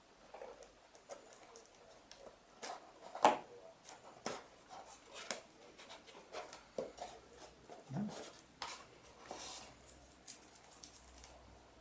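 Hands working a cardboard egg-box model on a table: a scissors snip on masking tape, then scattered rustles, taps and clicks of cardboard and paper being pressed and moved, with one sharper knock about three seconds in.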